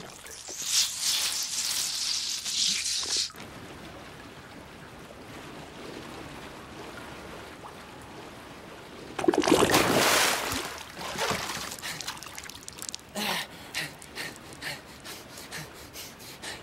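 Cartoon sound effects of a body shooting down a sewer pipe: a rushing slide for the first few seconds, then steady running water. About nine seconds in comes a loud splash into the sewage, followed by water trickling from an outflow pipe and a string of short gasps.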